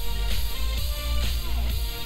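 A song playing at full volume through a JBL Boombox 2 Bluetooth speaker: a heavy, steady bass with notes sliding up and down above it.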